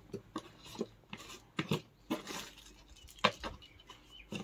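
Plastic sweet jars and their lids being handled: a string of light, irregular knocks and clicks, the sharpest about three seconds in.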